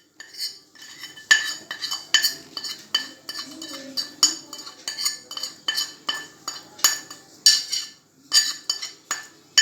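A metal spoon clinking against a cooking pot, sharp ringing taps at an irregular pace of about two a second, as pepper and salt are spooned into the soup.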